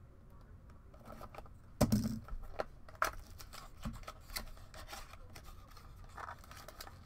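Shrink-wrap being slit and pulled off a cardboard trading-card box, a run of irregular scrapes and clicks with a sharp knock about two seconds in.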